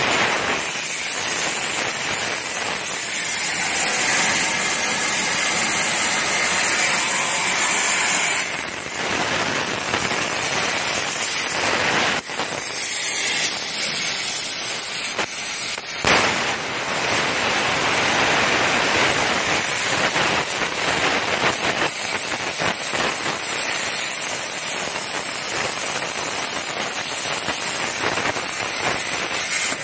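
Plasma cutting torch on a CNC table cutting steel plate: a loud, steady hiss with crackling, broken briefly about twelve seconds in and marked by a sharp crack about sixteen seconds in.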